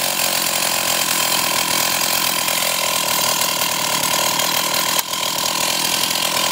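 Stihl 028 AV Wood Boss two-stroke chainsaw running steadily out of the cut, its engine firing evenly with a steady whine, after a fuel-system repair with a replacement carburetor.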